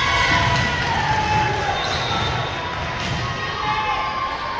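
Sounds of an indoor basketball game in a large gym hall: a ball bouncing on the court, short high squeaks, and crowd noise.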